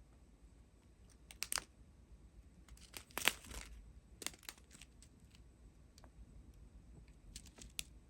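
Small plastic bags of diamond-painting drills being handled, crinkling in short bursts, with the longest, loudest crinkle about three seconds in.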